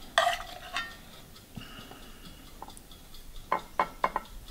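Metal ladle clinking against a metal cooking pot and a ceramic plate while stew sauce is spooned out: one ringing clink just after the start, then a quick run of light clicks and taps near the end.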